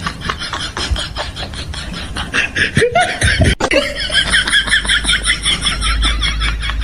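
A person laughing hard in quick, repeated bursts.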